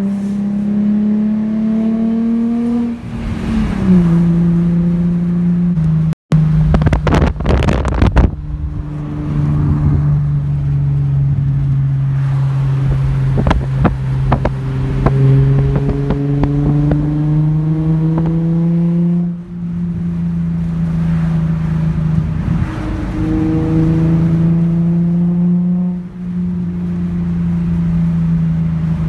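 Nissan Z's engine, on test pipes and a 3-inch exhaust, heard from inside the cabin while driving: the exhaust note rises in pitch and drops back at a gear change three times, holding steady in between. A brief rattle of clicks about six seconds in.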